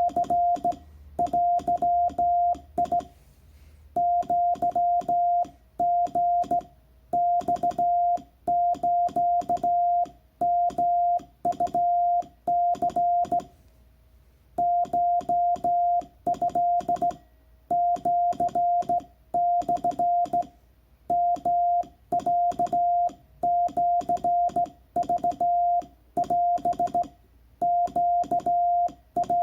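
Morse code sent by hand on a telegraph key: the transceiver's CW sidetone, a steady tone of about 700 Hz, keyed on and off in dots and dashes with short pauses between letters and words, and the key's contacts clicking with each element. The message is in Japanese Wabun code.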